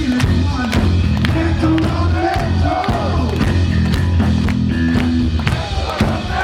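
Heavy metal band playing live and loud: sustained low guitar and bass notes under steady, regular drum hits.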